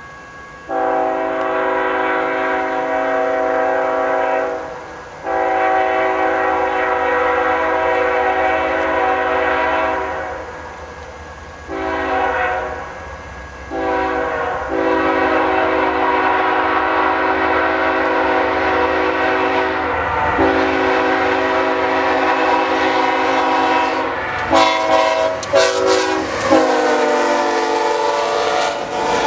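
BNSF diesel locomotive's multi-chime air horn sounding a series of long and short blasts for a grade crossing as a tank-car train approaches at speed. Near the end the locomotives pass and the horn's pitch drops, with clattering wheels and engine rumble.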